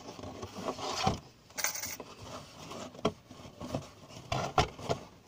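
A hand rummaging inside a cardboard box, reaching in for coins: irregular scraping and rustling with light knocks against the cardboard, and a short louder rustle near the middle.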